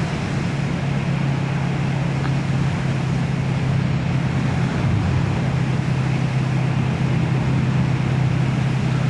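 Motorcycle engine running at a steady, unchanging pitch while riding along, mixed with an even rush of wind and road noise.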